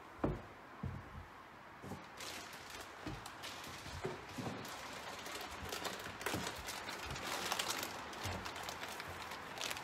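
Scattered light knocks, then a crackly rustle of plastic packaging being handled, growing louder toward the end.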